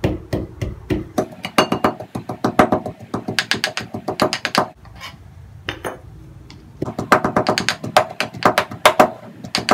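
Rapid repeated pounding strokes, several a second, as boiled chicken pieces and potato are pounded into shreds. They come in two runs with a pause of about two seconds in the middle.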